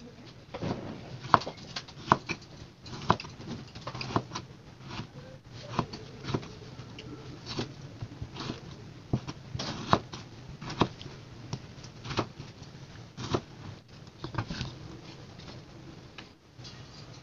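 Kitchen knife slicing tomatoes on a wooden cutting board, the blade knocking on the board with each cut at roughly two knocks a second, unevenly spaced. The knocks stop shortly before the end.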